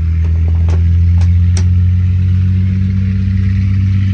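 An engine running steadily with a low, even drone, with a few light clicks in the first two seconds.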